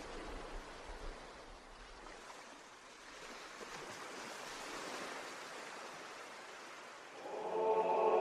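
A soft, steady hiss, then about seven seconds in the choir enters, singing held notes in Byzantine chant that ring on in a long, cathedral-like reverberation.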